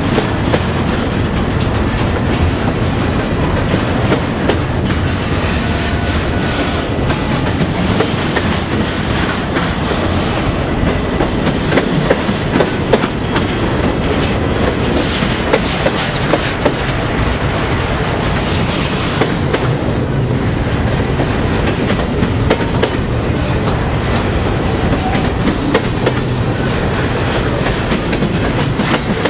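Double-stack intermodal freight cars rolling past close by: a steady rumble of steel wheels on rail, with frequent sharp clicks and clatter as the wheels cross the rail joints.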